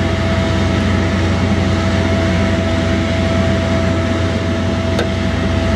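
Steady machine drone with a low hum and a constant mid-pitched tone, unchanging throughout, with one small click about five seconds in.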